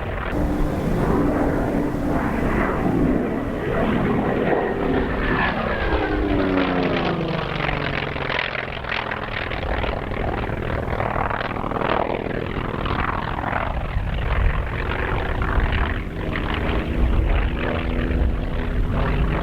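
Propeller airplane's engine drone as it makes low passes, its pitch falling as it goes by about five seconds in and again around ten seconds.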